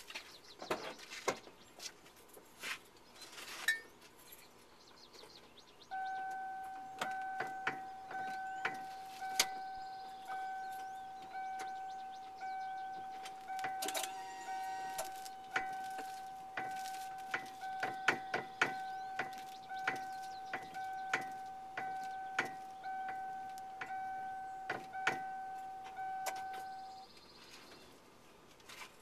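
A car's electronic warning chime dinging over and over at an even pace for about twenty seconds, with sharp clicks and knocks throughout, which fit the unidentified steering noise of a 1996 Mustang GT as the wheel is worked.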